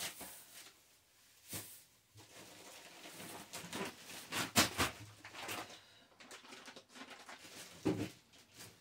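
Scattered knocks and clatter of kitchen handling, with the sharpest clicks about a second and a half and four and a half seconds in.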